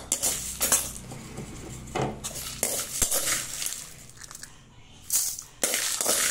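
Steel spoon scraping roasted dried red chillies and black urad dal out of an aluminium bowl and tipping them into a steel mixer-grinder jar: dry, rattling scrapes in several short bursts, with a sharp click about three seconds in.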